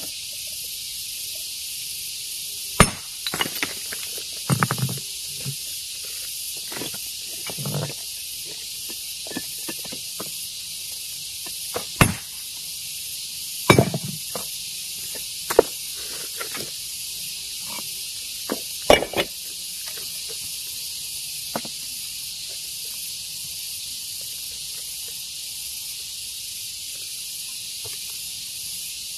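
Hammer blows knocking on stone as rock is broken by hand: about half a dozen loud, sharp strikes several seconds apart, with softer knocks between, over a steady high hiss.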